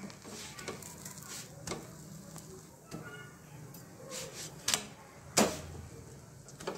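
Steel spatula pressing and scraping a paratha on a flat tawa griddle, pressing it down all over so it puffs up as it cooks. Light scrapes and taps throughout, with two sharper knocks a little past the middle, the second the loudest, as the spatula comes back down onto the paratha and the pan.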